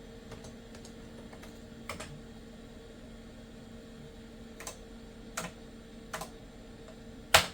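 Computer keyboard keys pressed one at a time, about five separate clicks with pauses between, the last the loudest, while entering the date and time in the BIOS setup. Under them is the steady hum of the running computer, its hard drive loud with the case off.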